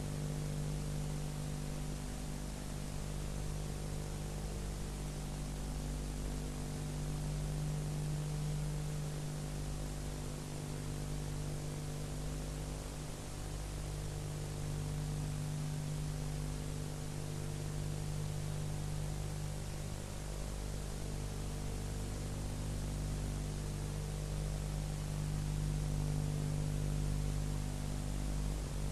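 Steady hiss with a low, constant electrical hum: the noise floor of an old film or tape transfer, with no distinct events.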